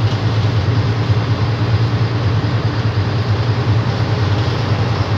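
Leyland Titan PD2 double-decker's six-cylinder diesel engine running with a steady low drone and rattle, heard inside the lower saloon.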